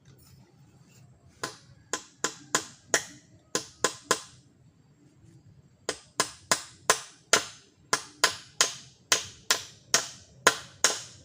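A tool striking wood again and again in sharp, hard blows. A first run of about eight strikes is followed by a pause of a couple of seconds. Then comes a steady run of roughly two to three strikes a second.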